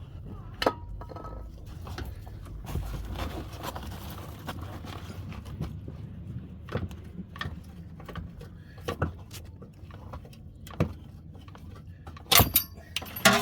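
Metal hand tools and suspension parts clinking and knocking in irregular taps during work on a car's rear air suspension, with a few sharper metallic clanks, the loudest pair near the end, one ringing briefly.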